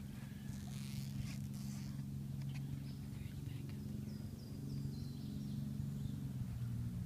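A steady low hum, with a few faint high chirps over it.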